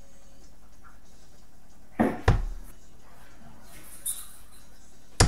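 Steel-tip darts striking a Winmau Blade 5 bristle dartboard: two sharp thuds in quick succession about two seconds in, and another right at the end.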